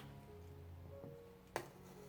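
Soft background music with held notes, and a single sharp knife chop on a cutting board about a second and a half in, from celery being cut.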